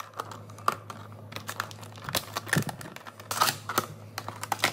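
Stiff clear plastic blister packaging being handled and pried at, giving irregular sharp clicks and crinkles, with louder bunches about two seconds in and again a little past three seconds.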